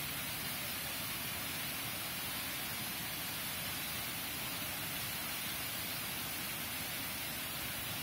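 Waterfall pouring over rock ledges into a pool: a steady, even rush of water that does not change.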